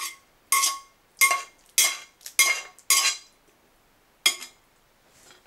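A utensil scraping and knocking against a frying pan as the last of the sour cream sauce is scraped out onto the meatballs. There are about seven short strokes with a slight metallic ring, roughly two a second, then a last one about four seconds in.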